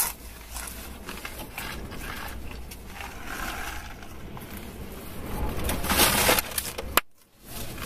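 Rustling of a cardboard fries carton and chewing, with a louder rustle about six seconds in and a sharp click about seven seconds in, followed by a brief drop-out.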